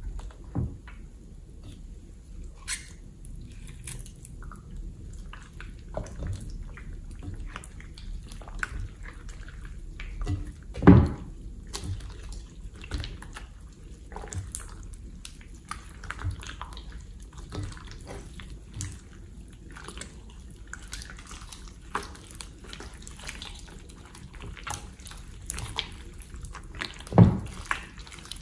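Hands squishing, squeezing and stretching thick, stringy slime in a glass bowl: irregular wet, sticky clicks and pops, with two louder plops, one about eleven seconds in and one near the end.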